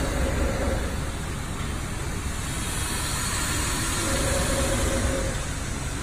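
Automatic rubber-seal inserting and crimping machine running, with its vibratory bowl feeder: a steady mechanical hum and hiss, with no distinct strokes.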